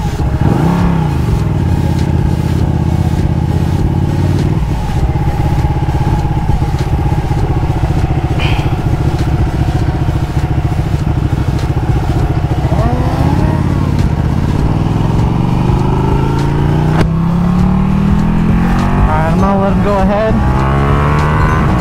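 Ducati Panigale 1299S V-twin engine pulling at speed. It holds a steady pitch at first, then rises in revs several times under acceleration, dropping once as it shifts up about three-quarters of the way through.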